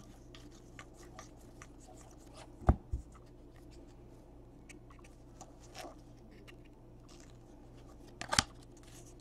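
Trading cards being handled and flipped through in the hands: faint clicks and slides of card stock, with a sharp tap about two and a half seconds in and another pair of sharp ticks near the end.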